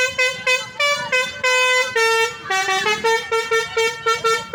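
Telolet horns, the multi-tone musical horns fitted to Indonesian buses and trucks, playing a fast run of short notes that jump between pitches, with one longer held note just before the middle.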